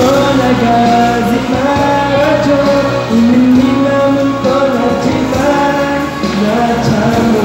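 A man singing a slow ballad through a karaoke microphone over the backing track of a TKR-304P karaoke machine.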